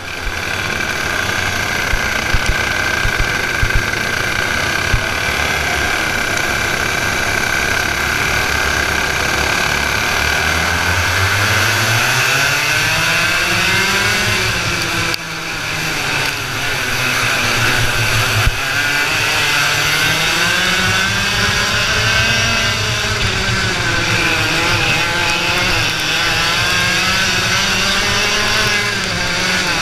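IAME Leopard 125cc two-stroke kart engine heard on board among a pack of karts. It runs at low, steady revs at first. From about eleven seconds in it revs up hard as the race gets the green flag, its pitch climbing under acceleration and dropping when it lifts for corners, several times over.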